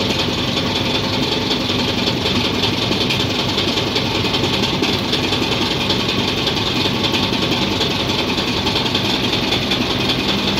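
Diesel injector test bench running steadily, its motor driving the fuel injection pump with a dense mechanical clatter and a high hiss.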